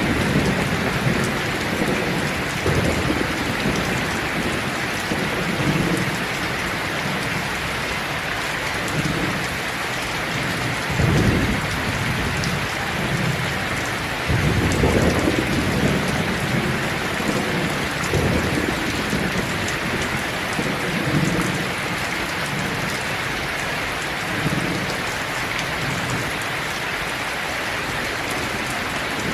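Steady rain falling on leaves, an even hiss, with low rumbles swelling up and fading every few seconds.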